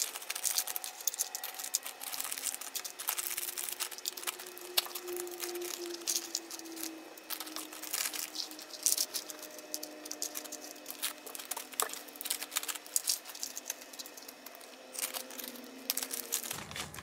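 Small plastic artificial nail tips clicking and clattering as they are handled and dropped into a storage box, a fast, irregular run of light clicks.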